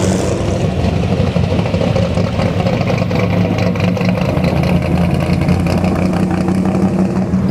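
Mid-1950s Chevrolet pickup and first-generation Buick Riviera driving slowly past in a parade. Their engines run steadily with a low hum that grows stronger as the Riviera goes by.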